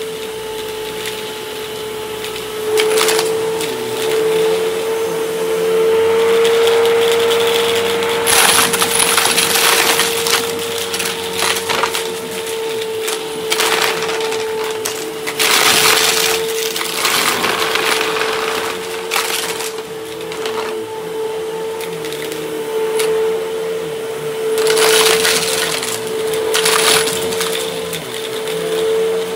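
Upright vacuum cleaner running with a steady motor whine, broken by repeated bursts of rattling and crackling as it sucks up confetti from a rug.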